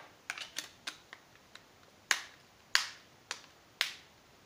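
Plastic back cover of a QMobile Power 5000 feature phone being pressed onto the handset over the fitted battery, its clips snapping into place: a few small clicks, then four louder sharp snaps about half a second apart.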